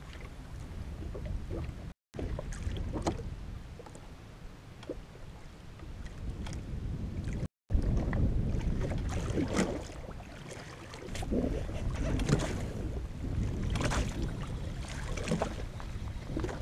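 Wind buffeting the microphone and small waves slapping irregularly against the hull of a drifting jet ski. The sound cuts out completely twice, briefly.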